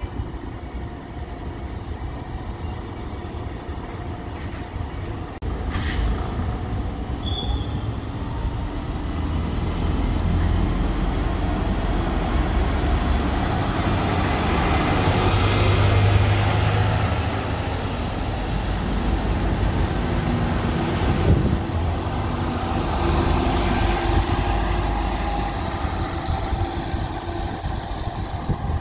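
City buses driving through a bus interchange. Their engine and road noise builds to its loudest as one passes close about halfway through, and swells again a little later.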